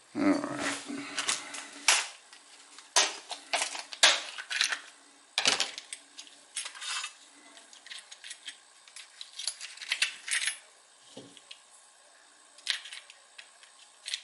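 Small metal parts clinking and rattling as they are rummaged through and handled, in irregular clicks with quieter gaps between.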